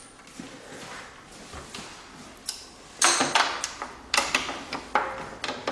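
Metal telescope parts clicking and rattling as a fitting on the secondary cage is handled and tightened by hand. A quick series of sharp clicks starts about three seconds in.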